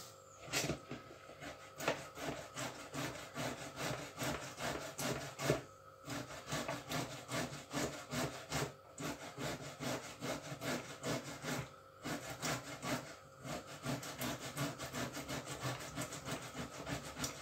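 Beetroot being grated on the coarse side of a metal box grater: a steady run of quick scraping strokes, broken by a few short pauses.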